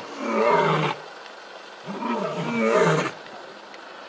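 Lion roaring: two loud, drawn-out calls of wavering pitch, the second longer than the first.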